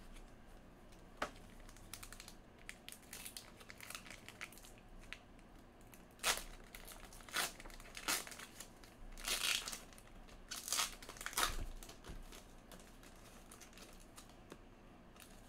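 Foil wrapper of a Panini Elite trading-card pack crinkling as it is slowly torn open by hand: faint at first, then a run of louder short crinkles from about six seconds in.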